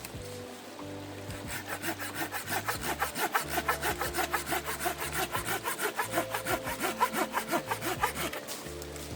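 Hand saw cutting through wood in quick, even back-and-forth strokes, several a second, starting about a second in and stopping near the end.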